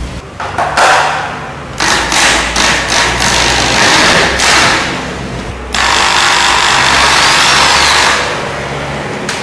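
Handheld power tool running in bursts. There is a short burst about a second in, a stretch that pulses on and off, then a longer, steadier run that eases off near the end.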